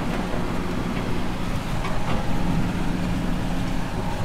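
Tractor engine running steadily under load while driving a shredder (mulcher) through the sorghum.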